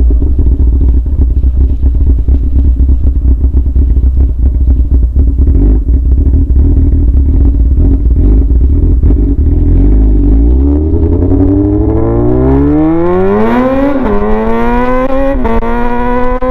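Yamaha R6's inline-four engine running through an open straight pipe with no muffler: a low steady note for about ten seconds, then rising steeply in pitch as it revs up, with two brief dips near the end.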